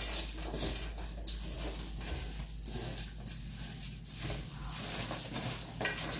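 Flattened green rice flakes (cốm dẹp) being tossed and mixed in a bowl: an irregular soft rustling and squishing with small ticks.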